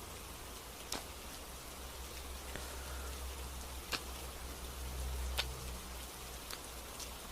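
Gentle rain: a steady soft hiss with about six sharp, drip-like clicks scattered through it, over a low rumble that swells briefly past the middle.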